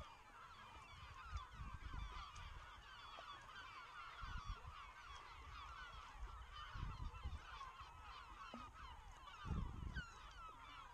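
A dense flock of birds calling all at once, many short overlapping calls, honking like geese. Irregular low bumps sound underneath it now and then, the strongest about nine and a half seconds in.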